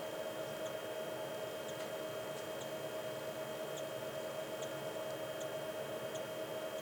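Steady electrical hum made of several fixed tones. Faint, very brief high chirps come through it roughly once a second.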